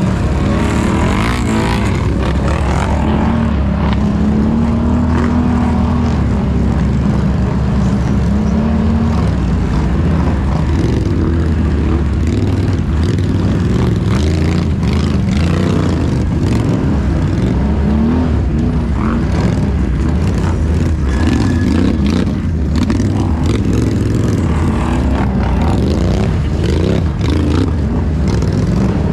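ATV engine running loud and revving, its pitch rising and falling over a steady low rumble.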